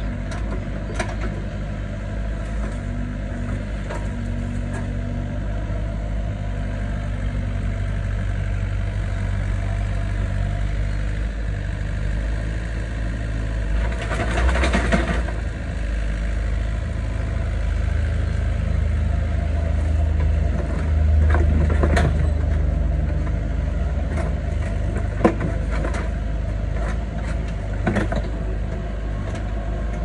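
Doosan mini excavator's diesel engine running steadily as the machine digs and swings. The engine grows louder under load about two-thirds of the way in. Scattered sharp knocks and a short rushing burst about halfway through come from the bucket and arm at work.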